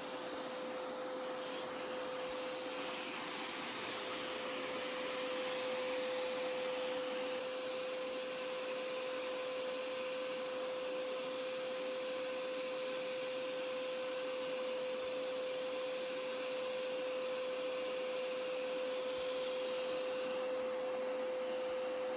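Hoover Power Scrub Elite Pet carpet cleaner running with its handheld tool: a steady motor hum with one strong tone over the hiss of suction. From about three to seven seconds in, the hiss grows louder.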